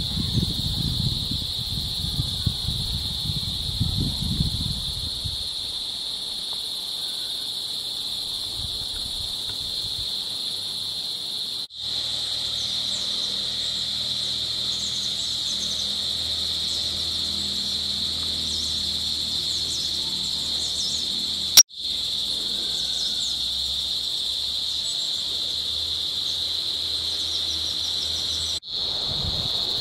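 Crickets chirring in a pine forest: a loud, continuous, high, even trill. There is some low rumble in the first few seconds.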